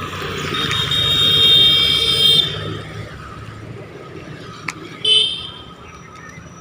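Road traffic with a vehicle horn held for about two seconds, followed near the end by a short second toot, over the low rumble of passing engines.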